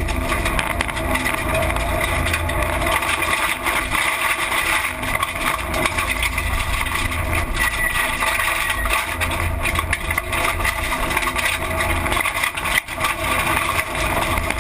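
Rally car driven hard on a special stage, heard from inside the cabin: the engine and drivetrain run loud and steady under the tyre and road noise, with brief dips in level about four seconds in and again about two seconds before the end.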